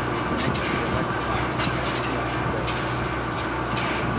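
1925 Baldwin 2-8-0 steam locomotive standing still, giving off a steady hiss of steam over a low, even hum.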